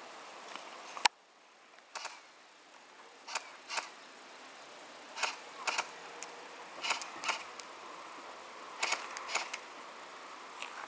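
Airsoft guns firing single shots: a string of short sharp pops, mostly in pairs, with one louder crack about a second in.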